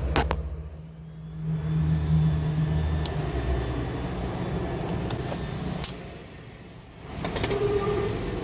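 A motor vehicle's engine running with a low rumble that swells and fades, and a few sharp clicks.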